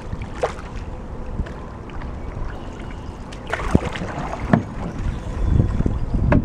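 Canoe being paddled: paddle strokes and water sounds, with a few short knocks and splashes around a second in and again around four seconds in, over low wind rumble on the microphone.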